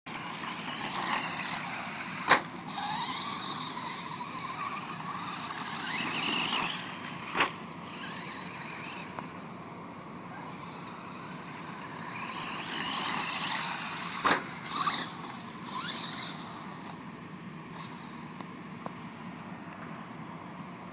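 Traxxas Stampede VXL RC monster trucks running on dirt: the brushless electric motors whine, rising and falling in pitch as the trucks speed up and slow down, over the rush of tyres on dirt. Three sharp knocks come at about 2, 7 and 14 seconds in, and the sound quietens in the last few seconds.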